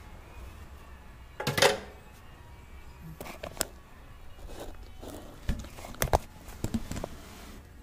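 Scattered metal clicks and knocks of hand tools and parts being handled around an engine's exposed timing chain, with a louder handling rustle and thump about a second and a half in.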